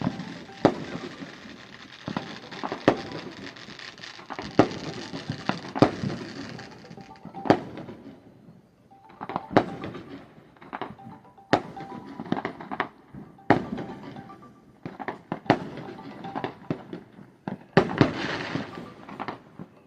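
Fireworks going off one after another: irregular sharp bangs, a few every couple of seconds, some loud and close and others fainter and farther off, over a bed of crackling pops.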